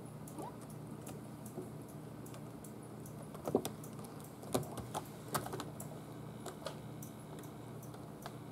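Six-week-old kittens play-fighting on a cat tree, their claws clicking and scratching on its sisal scratching pad and carpet: a scatter of light, sharp ticks and scrapes, busiest about halfway through.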